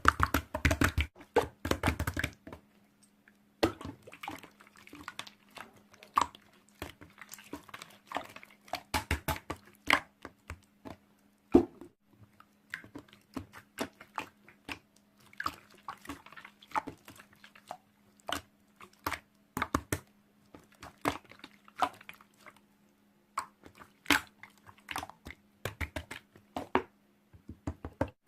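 Slime being squished and pressed by hand, making irregular sticky clicks and wet pops.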